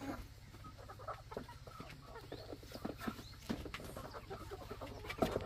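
A flock of chickens clucking, with scattered light knocks and rustling.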